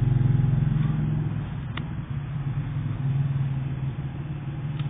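A steady low mechanical hum, like a motor running, with two brief faint clicks, one about two seconds in and one near the end.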